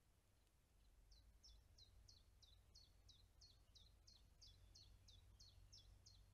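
A small songbird singing a long, even series of repeated high, down-slurred whistled notes, about three a second, starting about a second in, over a faint low rumble.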